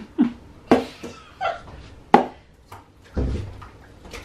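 A handful of sharp knocks and soft thuds, the loudest about two seconds in: a jar of blended seasoning paste knocked against a metal cooking pot and hands working the paste onto raw chicken inside it.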